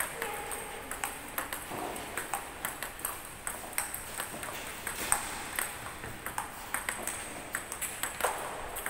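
Table-tennis balls being struck with paddles and bouncing on the table: a quick, irregular run of sharp clicks, several a second.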